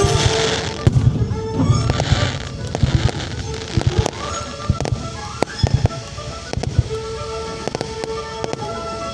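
Aerial fireworks bursting one after another, several booms a second with crackles, over music with sustained notes.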